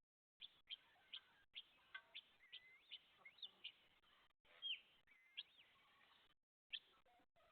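Faint bird chirping: a run of short, high chirps, about two a second, with a couple of longer gliding calls about halfway through.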